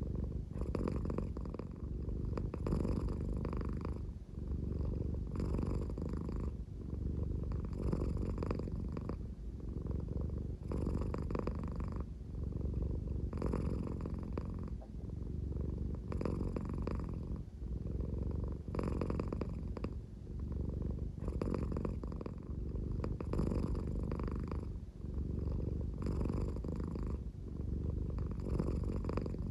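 American Shorthair cat purring slowly, a deep, snore-like rumble that swells and eases in a steady rhythm about every two and a half seconds.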